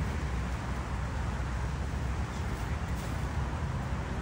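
Steady background noise with a low rumble and hiss, with no distinct event standing out.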